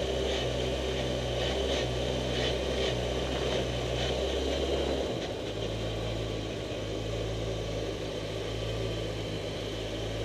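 Caterham SP/300.R's engine idling as the car creeps along at walking pace, its steady note shifting about halfway through.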